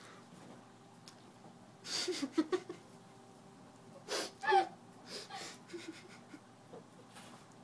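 Short breathy non-word vocal sounds, like gasps or a whimpering 'mm', about two seconds in and again, longer and wavering, about four seconds in, with quiet room tone between.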